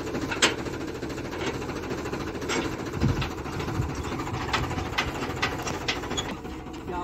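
Tractor engine running steadily, driving a borewell rig, with scattered sharp clinks and knocks as the column pipe and clamp are handled at the well mouth.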